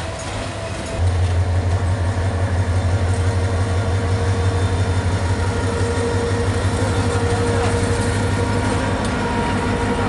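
Diesel locomotive engine opening up about a second in to a loud, low, pulsing drone as the locomotive pulls past with its passenger coaches.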